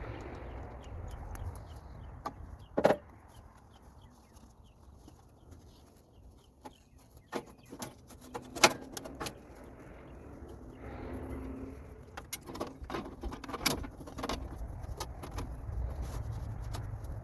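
Scattered metallic clanks, clicks and knocks from hands-on work at a Woodland Mills HM126 portable band sawmill, with single louder bangs about three, nine (the loudest) and fourteen seconds in.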